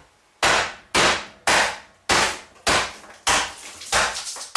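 Claw hammer bashing the top of a metal tin of baked beans to break it open. About eight hard blows come at roughly two a second, each a sharp impact with a short decaying ring.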